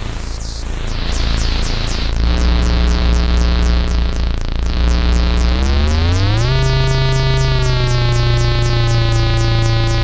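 GForce Oberheim SEM software synthesizer playing a preset: a rapid repeating pulse, about five a second, runs over a noisy wash. About two seconds in, a held low note takes over, glides up in pitch over about a second just past the middle, then holds.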